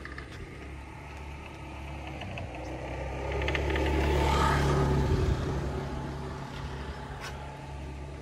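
A motor vehicle passes close by: its engine grows louder to a peak about four to five seconds in, then fades away.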